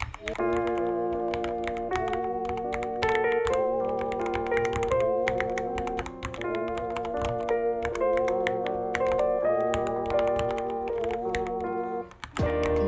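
Rapid typing on a Ducky One 3 mechanical keyboard, a steady stream of key clacks, over background music with held, wavering melody notes that briefly drop out near the end.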